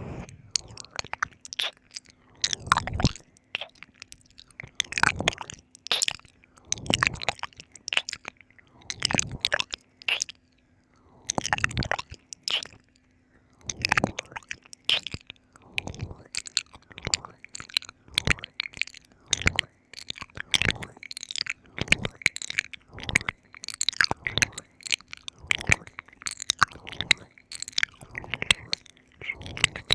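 Wet ASMR ear-licking mouth sounds: tongue licks, smacks and sticky clicks coming in short clusters every second or two.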